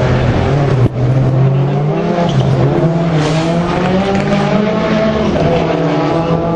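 Competition off-road rally car engine running hard on the circuit, its pitch repeatedly climbing and dropping as the driver revs and changes gear, with a momentary break about a second in.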